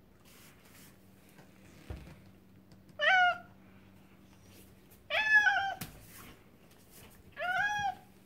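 Domestic cat meowing three times, begging for a dried anchovy held out to it; the middle meow is the longest and loudest.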